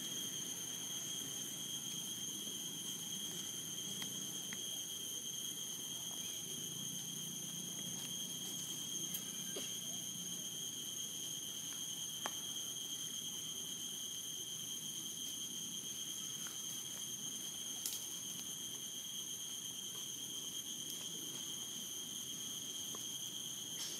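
Insects calling in one unbroken, high-pitched tone, with a few faint clicks over a low background rumble.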